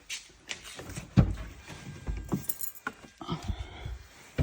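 Irregular clicks, knocks and low thumps of hands working the controls and fittings in a car's cabin, the loudest thump about a second in.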